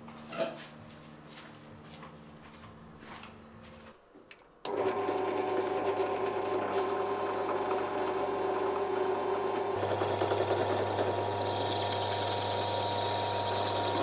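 A few light clicks, then about five seconds in a bench drill press motor starts suddenly and runs with a steady hum. In the last few seconds a high hiss joins as the turning bit cuts into the red plastic scale of a Swiss Army knife clamped in a vise.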